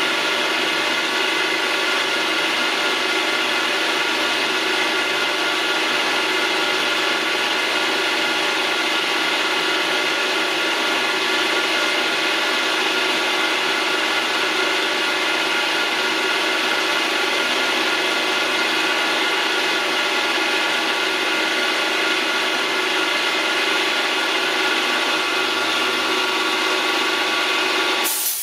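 Vertical milling machine running steadily at one speed while machining a small part, with an even machine hum made of several fixed pitches. Near the end comes a short burst of compressed-air hiss as chips are blown off the part.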